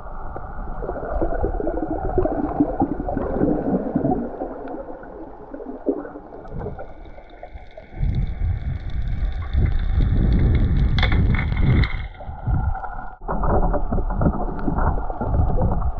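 Muffled underwater sound picked up by a snorkeler's action camera: water rushing and rumbling around the camera housing as she swims, heavier and deeper from about halfway through. A faint steady whine sits under it for a few seconds in the middle.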